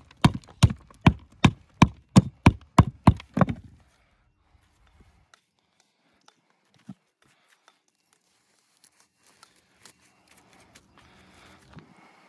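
Quick, regular blows of a hammer on stone, about three a second, stopping about three and a half seconds in. After that only faint taps and scraping are left.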